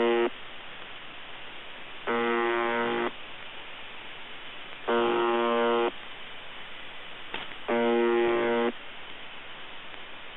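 UVB-76 "The Buzzer" on 4625 kHz shortwave, received through an Airspy HF+ software-defined radio: a harsh pitched buzz about a second long, repeating roughly every three seconds, with fluttering static between the buzzes. The uploader says it sounds a bit broken.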